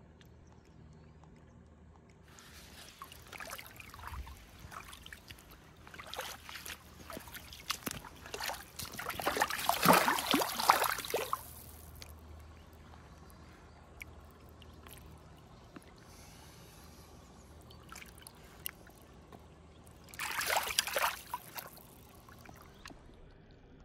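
Shallow river water splashing and trickling around a landing net holding a brown trout, in irregular bursts, loudest about ten seconds in and again in a short burst near the end as the net goes into the water.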